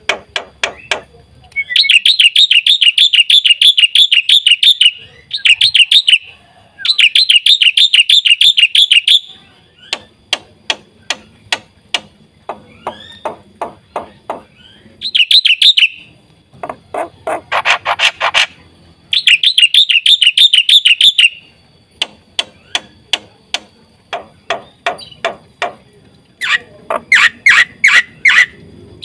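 Black-winged myna (jalak putih) singing: bursts of rapid, loud trilling a few seconds long, alternating with runs of sharp separate chattering notes.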